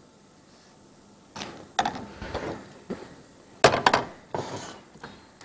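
A spatula knocking and scraping against a non-stick frying pan on a gas hob as a crepe is loosened for flipping. There are several sharp knocks, the loudest about two-thirds of the way in, with short scrapes between.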